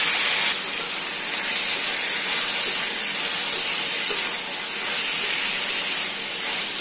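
Chopped tomatoes sizzling in hot oil in a steel kadai as a steel spatula stirs them: a steady hiss, a little louder in the first half-second after they go in.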